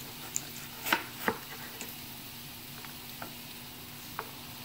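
Kitchen knife cutting an onion, the blade knocking on a wooden cutting board a few times at an uneven pace, with two louder knocks about a second in.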